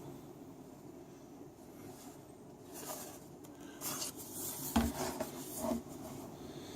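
Hands handling and turning over a tablet: soft rubbing and scraping, with one light knock a little past halfway, over a faint steady room hum.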